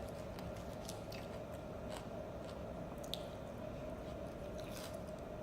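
Faint chewing of raw salad leaves, with small scattered wet crunches and squishes, one sharper click about three seconds in, over a steady background hum.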